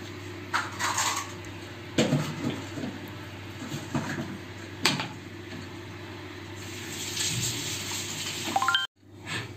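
Kitchen dishes being handled: a few scattered light knocks and clinks, then a soft hiss that builds near the end and cuts off suddenly.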